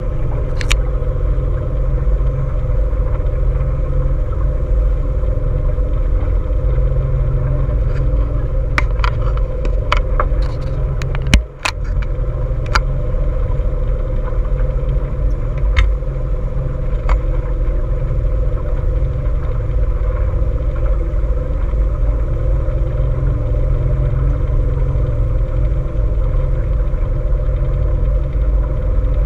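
Small boat's motor running steadily, a low rumble with a constant hum, with a few sharp knocks about a third of the way in.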